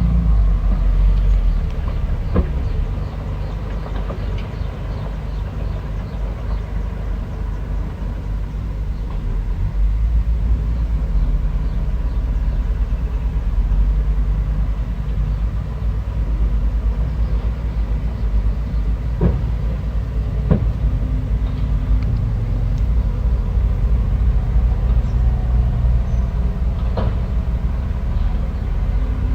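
Bulldozer's diesel engine running steadily under load, low and heavy, with a few sharp clanks.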